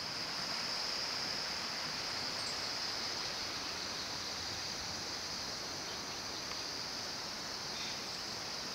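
A steady chorus of insects, a constant high-pitched shrill, over the continuous rush of a mountain river.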